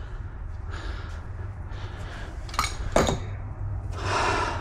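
Metal workshop parts being handled as a crankshaft is moved aside on the bench: two sharp metallic clinks about two and a half and three seconds in, over a steady low hum.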